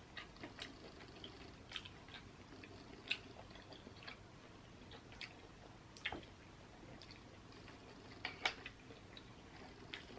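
A person chewing seafood close to the microphone, with soft wet mouth sounds and a handful of short, sharp clicks and smacks spread through the quiet.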